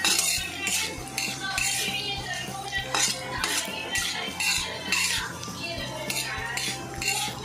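Metal spatula scraping and stirring cashew pieces and raisins around a kadhai as they fry in a little oil, in repeated strokes about twice a second.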